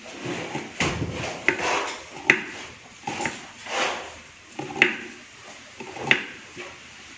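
A small kitchen knife cutting food held in the hand, with a scraping stroke about once a second and several sharp clicks of the blade.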